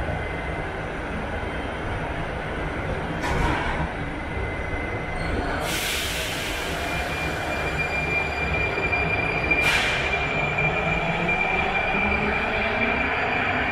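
Prague Metro 81-71M train at the platform: its pneumatic doors close with a hiss of air about halfway in, another short hiss of air follows a few seconds later, and the train pulls out with a steady high whine over its low running rumble.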